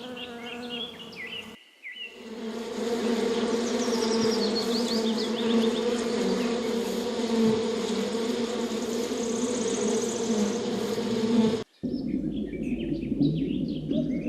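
Bees buzzing: a steady droning hum that starts about two seconds in and cuts off suddenly near the end. Brief bird chirps come before the hum and after the cut.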